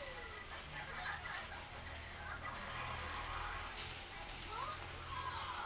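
Charcoal grill of skewered chicken hearts sizzling with a steady hiss under a low steady hum, with short, quickly falling bird chirps now and then.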